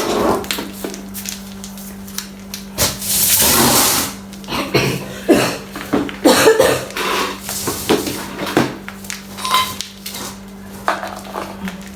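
Kitchen utensils and containers clattering and knocking as they are handled, with a brief hiss about three seconds in, over a steady low hum.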